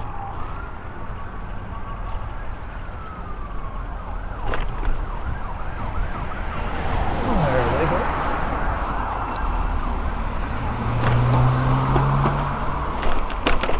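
A siren wailing, its pitch sliding up and down, over steady road traffic.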